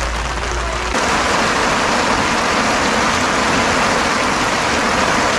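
Steady heavy rain falling, a dense even hiss that gets louder about a second in.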